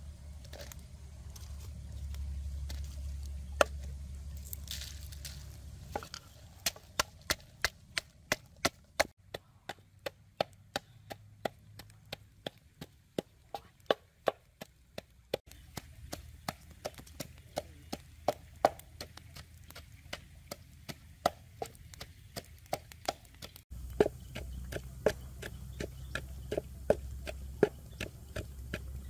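Wooden pestle pounding red chilies in a wooden mortar: a steady run of sharp wooden knocks, about three a second, with a few short pauses.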